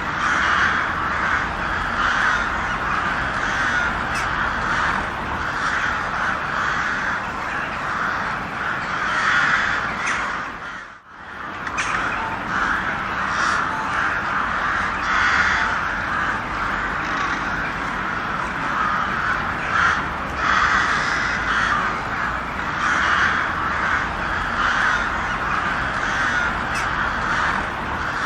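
A flock of crows cawing constantly, many harsh calls overlapping into one dense clamour, with a brief break about eleven seconds in.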